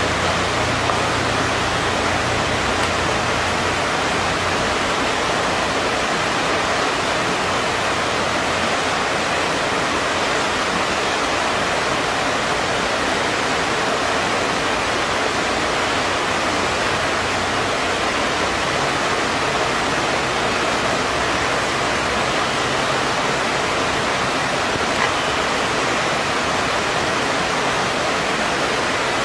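Steady rushing of a shallow, rocky creek running over stones.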